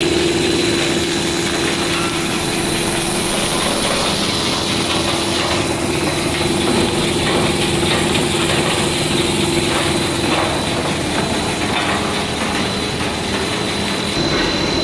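Snack food production line machinery running continuously, an extruder and conveyor motors, with a steady hum and a thin high whine over an even mechanical noise.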